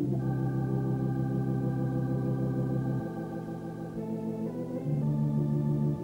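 Organ music: slow sustained chords that change a few times, about three, four and five seconds in.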